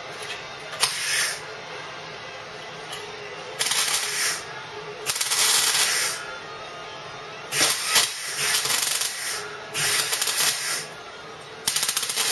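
MIG welder stitch-welding a steel car body seam: about seven short bursts of arc hiss, each half a second to a second long, with short pauses between.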